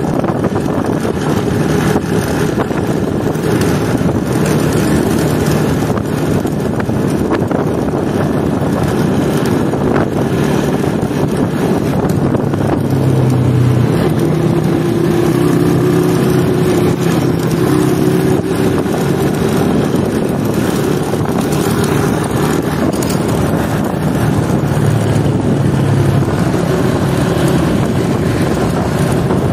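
Old Honda motorcycle's engine running while riding in city traffic, with wind rushing over the microphone. The engine note grows stronger about halfway through and again near the end.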